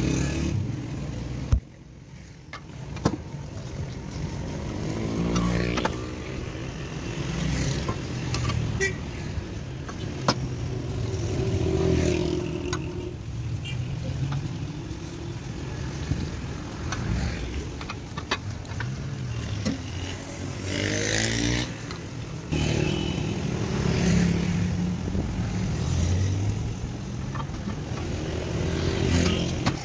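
Street traffic, with vehicle engines passing every few seconds over faint voices. Close by there are occasional sharp clicks and plastic crinkling as plastic-wrapped cleavers are handled and laid on a table.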